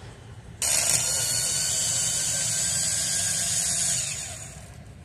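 A two-speed cordless power tool's motor switched on, running at a steady high-pitched whir for about three seconds, then winding down.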